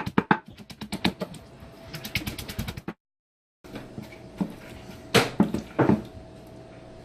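Rapid clicking and tapping of a utensil against a container as Jello is mashed. It breaks off in a brief dropout, followed by two louder knocks, over a faint steady hum.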